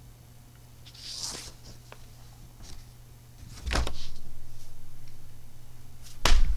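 Handling noise on a camera-mounted microphone: a soft rustle about a second in, a couple of faint clicks, then two heavy thumps, one a little after halfway and one near the end, over a low steady hum.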